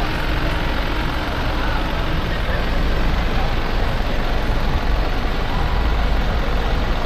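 Steady city-street traffic noise with a deep engine rumble, as of a bus or other heavy vehicle running nearby, growing a little louder about three seconds in.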